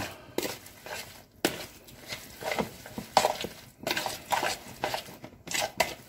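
Raw chicken pieces being mixed by hand with a dry-spice and garlic marinade in a plastic bowl: irregular wet squishing and shuffling of the meat, with a few sharp knocks against the bowl.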